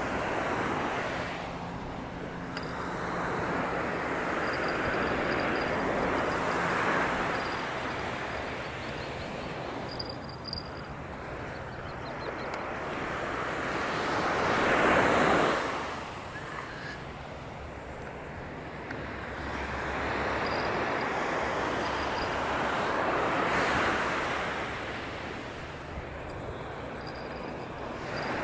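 Waves breaking and washing in, the noise swelling and fading every few seconds, with the loudest wave about halfway through.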